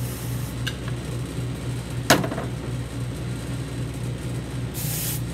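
Shoe-finishing machine's motor running with a steady hum as its brush wheel spins. Wax is pressed briefly against the spinning brush with a short hiss, at the start and again near the end. There is one sharp knock about two seconds in.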